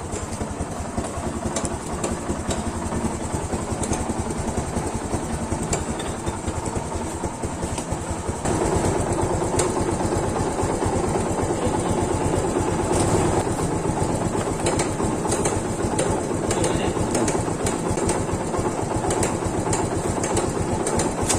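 Yamaha FZ150's single-cylinder engine running with a noisy cylinder head. The top-end noise could come from the camshaft or its bearing, tappet clearance, the timing chain, its guide or the tensioner. It gets louder about eight seconds in.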